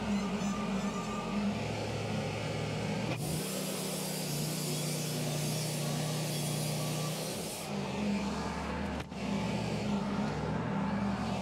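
Wood-Mizer portable band sawmill running, its engine droning steadily while the band blade cuts through a treated pine utility pole. A hiss from the blade in the wood is strongest in the middle few seconds, and the sound changes abruptly about three seconds in and again near the end.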